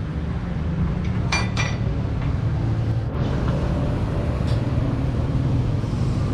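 Steady low engine rumble with a few brief ringing metal clinks, two close together about a second in and a fainter one midway.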